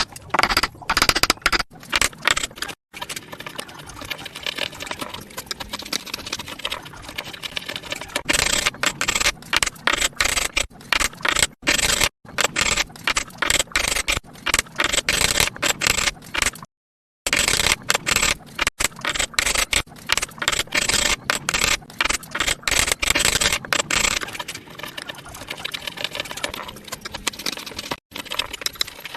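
Hand tools working wood: quick runs of short scraping and tapping strokes, with the sound cutting off dead a few times.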